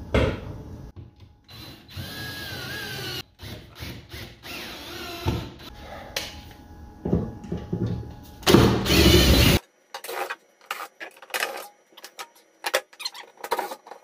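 Cordless drill running in bursts against the heater's wall-mounting bracket, going into a wall stud; its whine rises and falls, with one loud full-speed run about two-thirds of the way in. After that run the sound drops suddenly to short clicks and taps.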